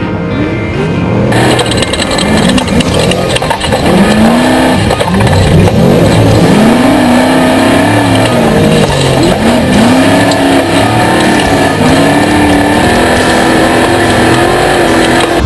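Off-road race vehicle engine revving up and dropping back again and again, the pitch rising and falling every second or two over a loud, steady rush of noise.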